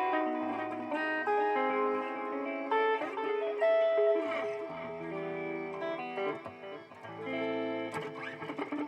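Electric guitar played through a BOSS DD-8 digital delay pedal in Warp mode: picked notes that ring on and overlap with their repeating echoes, with a few sliding pitches about halfway through.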